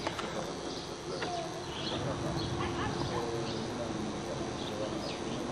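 Small birds chirping in short, high calls every half second or so over a steady outdoor background noise.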